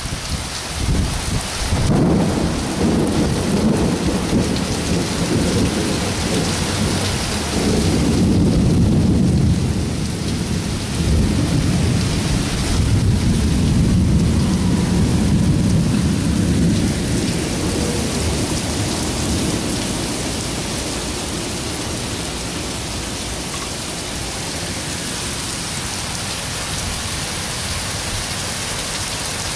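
Heavy downpour of a thunderstorm hissing on pavement, cars and roofs, with thunder rumbling underneath through the first half, swelling in waves and fading out after about eighteen seconds to steady rain.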